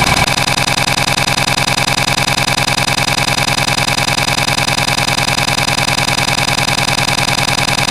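A loud, steady engine-like drone with a fast, even pulse, used as a sound effect. It changes character just after the start, then holds unchanged.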